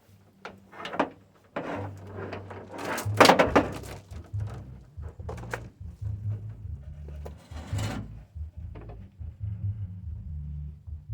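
A series of knocks and clattering scrapes, loudest about three seconds in, over a low steady hum.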